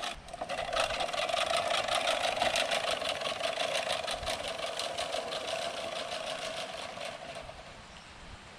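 Manual push reel lawn mower cutting grass as it is pushed: the spinning reel blades give a fast, even clatter over a steady whir. It fades near the end as the mower moves away.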